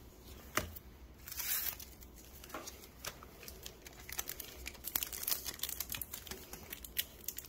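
Foil wrapper of a Pokémon trading-card booster pack crinkling and being torn open, with a longer tearing rasp about a second in and scattered small crackles as the pack and cards are handled.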